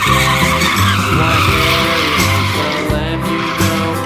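A race-car tyre-skid sound effect, a steady screeching hiss that fades away near the end, over background music.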